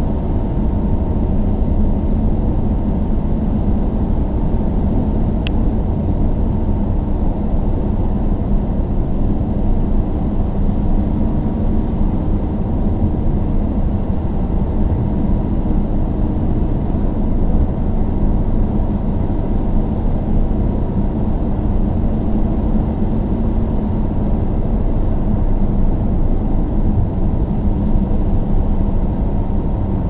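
Inside a car while driving: a steady low rumble of engine and road noise, with one faint short tick about five seconds in.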